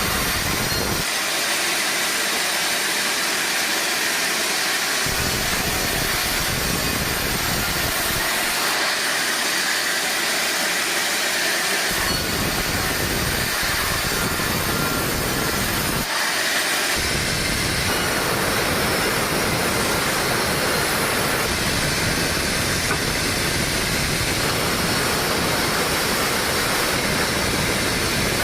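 Sawmill machinery running with a steady, loud rushing noise. The low rumble drops out abruptly a few times.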